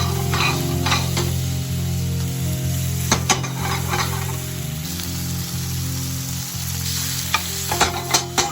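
Food frying and sizzling in a pan while it is stirred, with a few sharp utensil knocks, about three seconds in and near the end, over steady background music.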